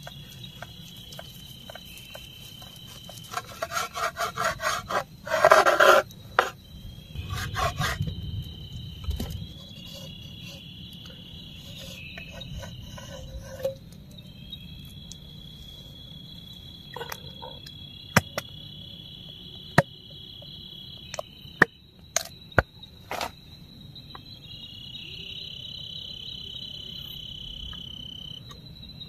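Night insects chirping steadily. A knife saws through grilled steak on a plastic cutting board in a quick run of rasping strokes, with a louder scrape just after. Later come a few scattered sharp clicks of utensils.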